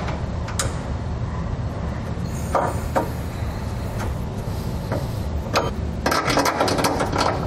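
Steel suspension bracket and bolt being handled against a truck frame: a few light metallic clicks as the bracket is positioned and a flat hex head bolt is started by hand, then a quick run of rapid clicking and rattling near the end. A steady low hum lies underneath.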